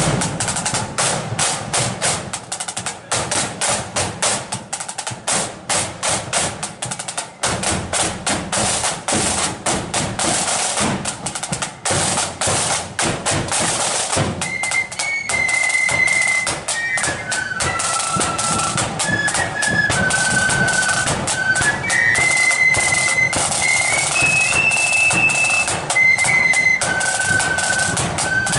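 Marching flute band. For about the first fourteen seconds the drums play alone, with snare rolls and beats. Then the flutes come in with a melody over the drumming.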